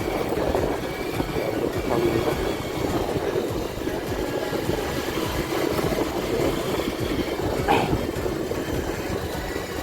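A vehicle travelling along a road: a steady rumble of engine, tyre and wind noise.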